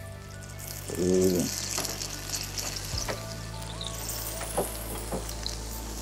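Ragi dosa batter sizzling on a hot dosa tawa, a steady frying hiss, with a wooden spatula scraping and tapping against the pan a few times. Soft background music runs underneath.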